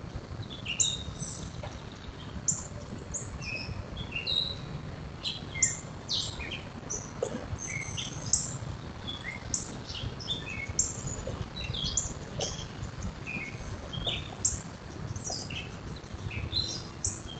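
Wild birds chirping and calling: many short, high notes and quick sweeps, several a second, over a steady low background rumble.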